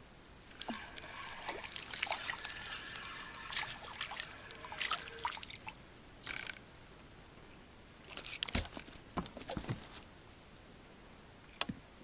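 Water splashing and trickling in irregular bursts, with scattered clicks, two longer spells and one short one near the end.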